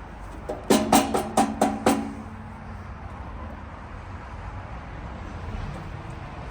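A quick run of about six sharp, ringing knocks, followed by a steady low outdoor rumble.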